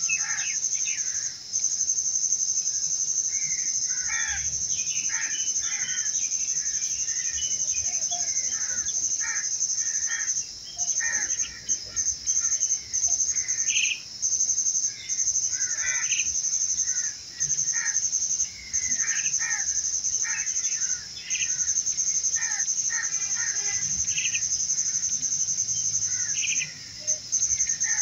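A steady high-pitched insect trill, broken now and then by brief gaps, with many short bird chirps and calls over it.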